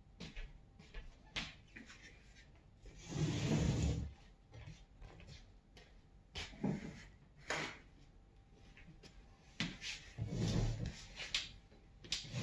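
Handling noise from a phone being moved: scattered small knocks and clicks, with two longer rubbing bursts about three seconds and ten seconds in.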